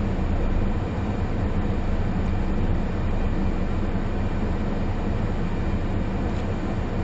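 Steady in-cabin running noise of a 2020 SsangYong Rexton Sports pickup on the move: a low, even rumble from its 2.2-litre diesel engine and drivetrain, mixed with tyre and road noise.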